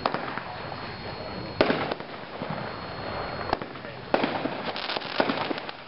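The "Current Events" 30-shot consumer firework cake firing. Single sharp shot reports come every second and a half or so, then a quicker cluster of bangs and crackles begins about four seconds in.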